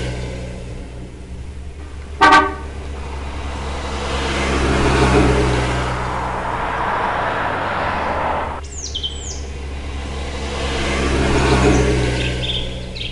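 Road traffic: cars passing in slow swells over a steady low hum, with a short car-horn toot about two seconds in. Two quick falling bird chirps come in about nine seconds in, and a few more chirps near the end.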